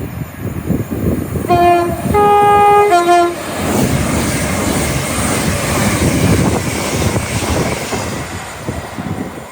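Train horn sounding three short notes, low, higher, low, about a second and a half in, followed by the train passing with a steady rush of wheel and rail noise that eases near the end.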